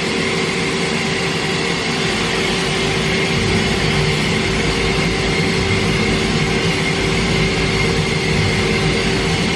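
Mazak Variaxis 630-5X five-axis CNC machining center running under power: a steady mechanical hum with a constant high whine over a haze of machine noise.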